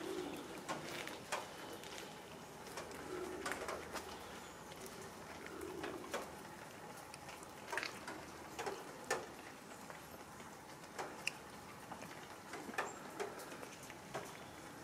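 Cats eating wet food from plastic trays: scattered small wet chewing and clicking sounds. A few short, low soft calls come in the first half.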